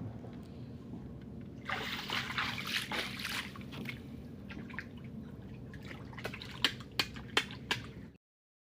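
Water splashing and trickling for a couple of seconds from about two seconds in, then a few sharp clicks, over a low steady hum; the sound cuts off abruptly near the end.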